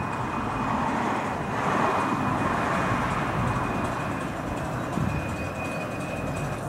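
A 10¼-inch gauge miniature steam locomotive and its carriages approaching on the track: a steady, noisy running sound that grows louder from about a second and a half in, with a thin steady high tone throughout.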